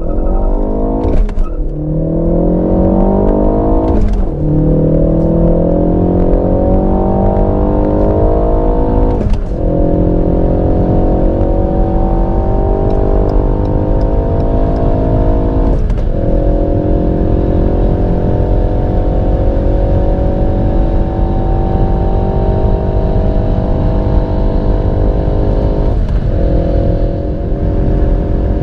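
A turbocharged four-cylinder hot-hatch engine under full-throttle acceleration from about 40 to over 230 km/h. Its pitch climbs steadily, then drops briefly at five quick upshifts about 1, 4, 9, 16 and 26 seconds in, and each gear takes longer to wind up than the one before.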